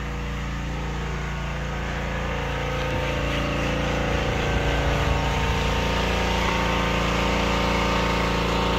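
Small petrol engine of a pressure washer running steadily, growing gradually louder.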